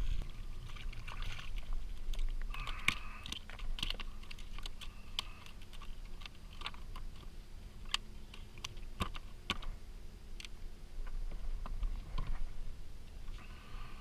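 Scattered sharp clicks and light knocks as a landed fish, rod and tackle are handled on a plastic fishing kayak's deck.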